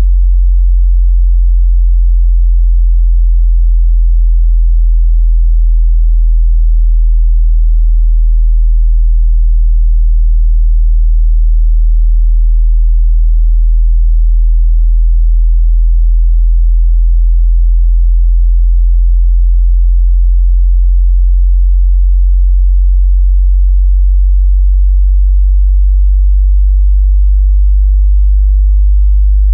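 Loud sub-bass sine tone, a continuous very low hum modulating slowly in pitch.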